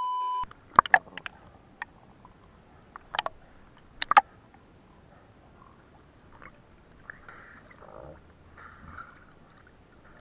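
A short steady test-tone beep with the colour-bars edit, then a few sharp knocks and clicks, the loudest about four seconds in, followed by soft water sloshing around the camera at the surface.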